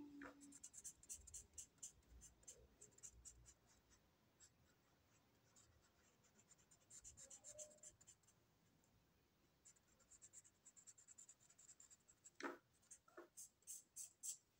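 Felt-tip marker scratching on paper in quick back-and-forth strokes as an area is coloured in, coming in several spells with short pauses. Two soft knocks come a little before the end.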